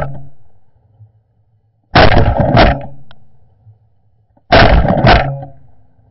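Shotgun blasts at running deer: a pair of shots about half a second apart about 2 s in, and another pair about 4.5 s in, each pair dying away over about a second.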